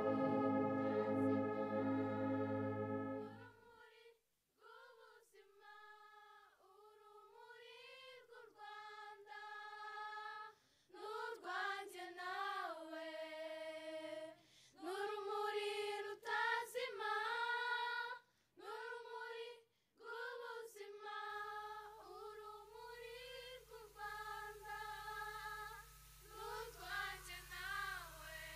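A held brass-like chord ends about three and a half seconds in. A single high voice then sings a slow melody alone, its notes gliding and pausing between phrases. A faint low steady hum comes in about two-thirds of the way through.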